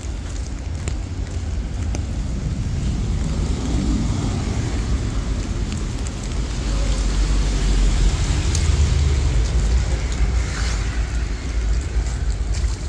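Steady rain hiss with car traffic going by on a wet street, over a deep rumble that grows louder past the middle.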